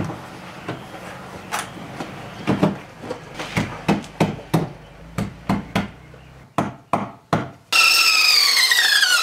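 Irregular sharp knocks of wooden trim pieces being tapped into place in a plywood door arch. Nearly eight seconds in, a benchtop band saw starts cutting a small piece of wood, its loud whine sliding down in pitch as the blade takes the load.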